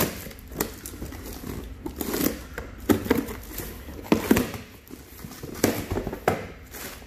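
Packing tape and cardboard flaps of a shipping box being torn and pulled open, in irregular rips and crackles.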